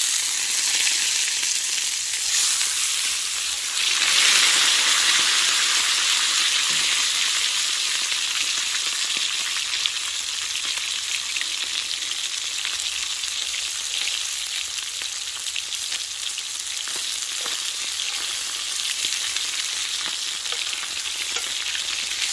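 Steak sizzling in a wrought iron skillet, a steady frying hiss that grows louder about four seconds in. The pan sits off the fire, still searing on its own held heat.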